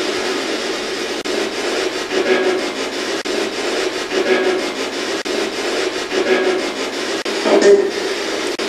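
Spirit box radio sweeping through stations: a steady rasping static, with faint clicks and short louder bursts about every two seconds.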